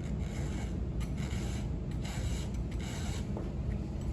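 Round file rasping across a saw-chain cutter tooth in repeated strokes, about one a second: the tooth is being hand-sharpened to correct its filing angle.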